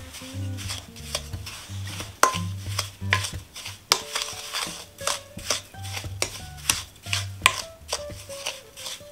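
Wooden spoon scraping and knocking against a mixing bowl in quick, irregular strokes as mashed potatoes and sugar are stirred together by hand. Soft background music with a bass line plays underneath.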